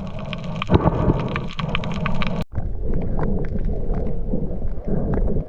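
Muffled low rumbling with dense crackling clicks, typical of a camera recording underwater. The sound breaks off abruptly about halfway through and resumes at once.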